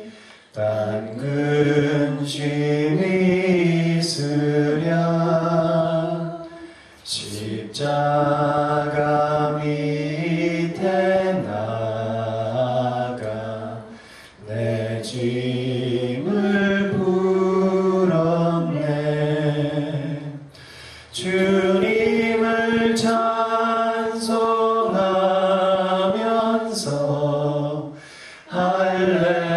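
A man singing unaccompanied into a microphone: a slow melody of long held notes, in phrases of about six to seven seconds with short breaks between them.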